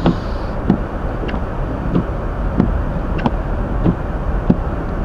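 Steady road and engine noise inside a Hyundai Elantra's cabin while driving, with a short, sharp tick about every two-thirds of a second.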